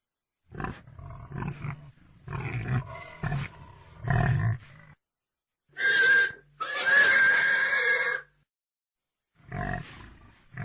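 Pig grunting in a run of short, rough grunts, then two high squeals, the second lasting about two seconds, then more grunts near the end.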